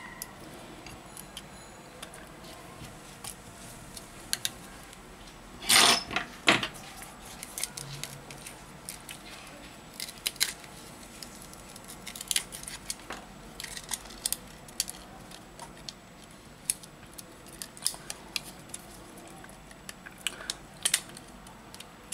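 A thin metal blade and a plastic pick prying a glued display off a Xiaomi Mi A2 Lite's frame, making scattered small clicks and scrapes as the adhesive gives. A louder cluster of cracks comes about six seconds in.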